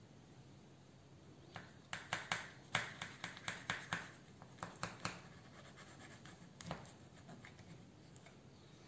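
Small knife cutting down through the crisp baked puff pastry crust of a chicken pot pie: a quick run of sharp crackles for a few seconds, then one more crackle a little later.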